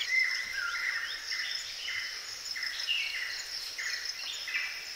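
Forest ambience: birds chirping in many short, repeated calls over a steady high-pitched insect trill.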